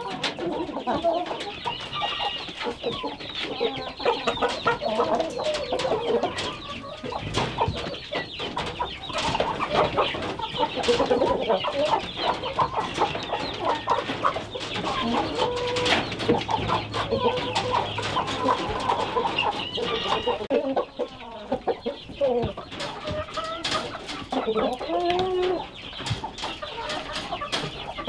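A flock of domestic chickens clucking, many birds calling over one another without a break.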